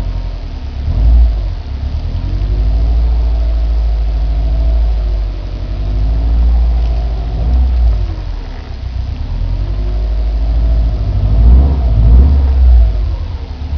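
Turbocharged flat-four engine of a 2009 Subaru Impreza WRX STI running, its note rising and falling again and again over a heavy low rumble, with louder swells about a second in and near the end.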